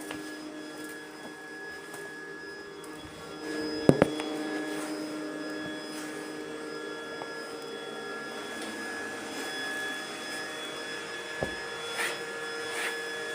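Hyundai X50 robot vacuum running with a steady whir of several tones, a little louder from about three and a half seconds in. A sharp knock comes about four seconds in, and a few clicks come near the end.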